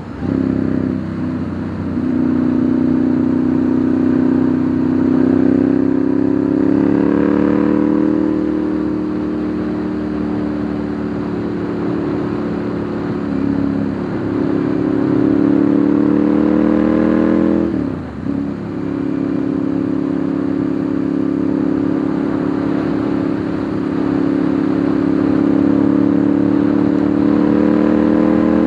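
Ducati Monster 1100's air-cooled L-twin engine, heard from on the motorcycle while riding. The engine note climbs slowly under throttle, and about 18 seconds in the revs drop sharply and pick up again at a lower pitch.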